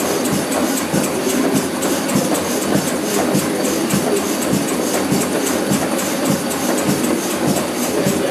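Miniature stationary beam engine running, its beam, linkages and flywheel making a steady rhythmic clatter of repeated knocks.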